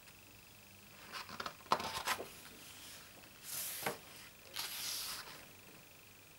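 Photobook pages being handled and turned: a short crinkling of paper about a second in, then two soft swishes as a page is swept over.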